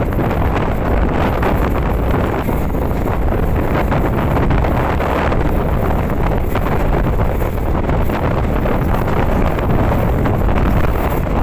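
Loud, steady wind buffeting the microphone held out of a moving passenger train's window, over the low running rumble of the train.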